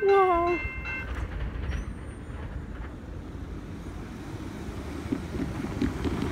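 Railroad grade-crossing bell ringing in quick repeated strokes, stopping about a second in, over a steady low rumble and wind on the microphone. Near the end, cars driving over the crossing add a rougher tyre noise.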